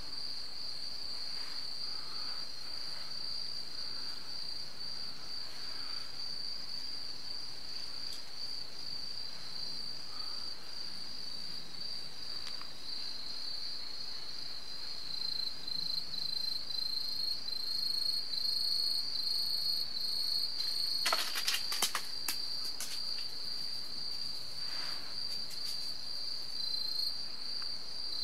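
Insects chirring in one steady, high-pitched trill that turns into an even pulsing beat about halfway through. A short burst of sharp clicks comes about three quarters of the way in.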